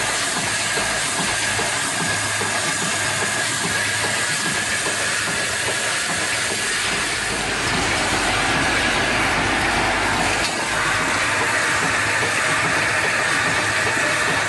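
Flip-top cap closing machine running at high speed: a steady, dense clatter of rapid mechanical clicks over a continuous hiss, with a faint steady whine.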